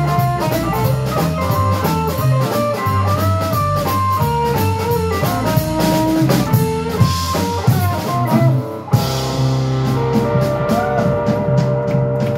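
Live electric blues trio: a lead electric guitar plays melodic runs over bass guitar and drums with steady cymbal strokes. About nine seconds in, the band lands on a held chord that rings on under the cymbals, the close of the tune.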